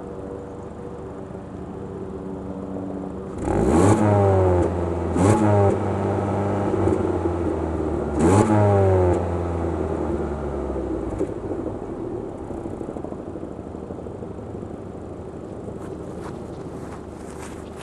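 2012 Ford Fiesta's 1.6-litre four-cylinder engine, warmed up, idling and then blipped three times, about three and a half, five and eight seconds in. Each rev climbs quickly and falls back. After the last one it settles back to a steady idle.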